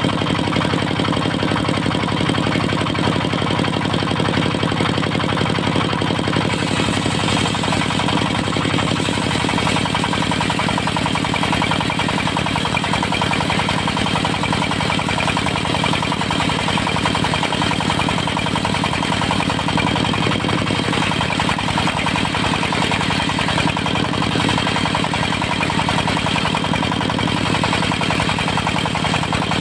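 Diesel engine of a portable circular sawmill running steadily.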